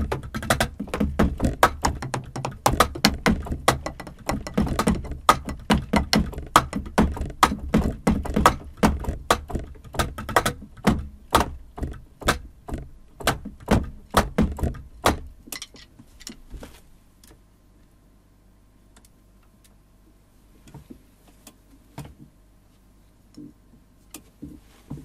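Drumsticks striking the pads and rubber cymbal pads of a Yamaha DTX6K-3X electronic drum kit, heard acoustically as a fast run of dull knocks and thuds with kick-pad thumps. The playing stops at about 15 seconds, and a few scattered taps follow near the end.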